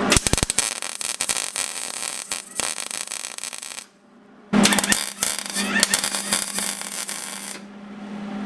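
Welding arc crackling and sputtering as a steel pipe is welded onto the go-kart frame: one run of welding, a pause of under a second about four seconds in, then a second run that stops near the end.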